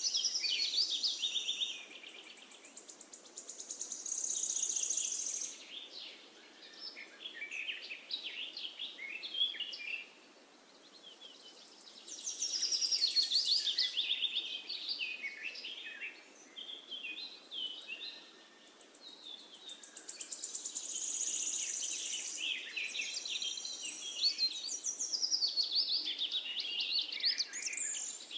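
Birds singing: phrases of quick chirps and warbling notes lasting several seconds each, with short pauses between them.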